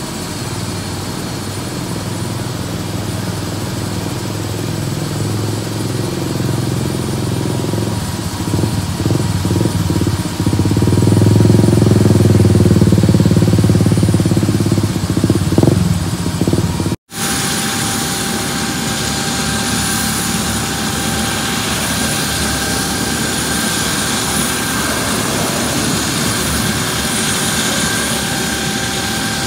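Airbus AS350 Écureuil helicopter running on the ground, a steady turbine whine over the rotor noise. The low rotor noise swells louder about ten to fifteen seconds in. After a momentary dropout just past halfway, it runs on steadily.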